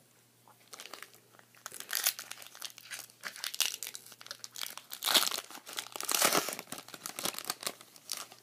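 Foil wrapper of a Pokémon Trading Card Game booster pack crinkling and tearing as it is handled and ripped open. It is a dense, irregular crackle that starts about half a second in and is loudest around the middle.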